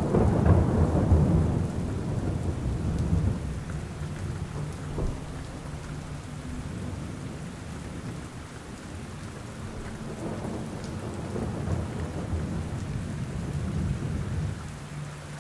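Steady rain with rolling thunder. One rumble is loudest at the start and dies away over the first few seconds, and a softer roll builds again about two-thirds of the way through.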